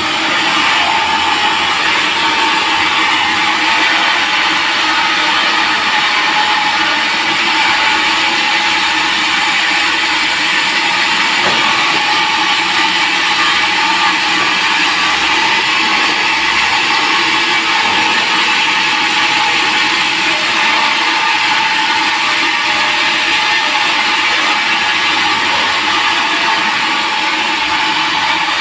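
Sawmill saw running steadily through a teak log: an unbroken loud rush of noise with a steady whine.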